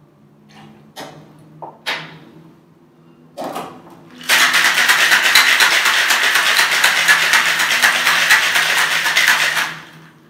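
Ice rattling hard inside a steel cocktail shaker, shaken rapidly for about five seconds to chill the drink. A few light clinks of the jigger and shaker come first, before the shaking starts.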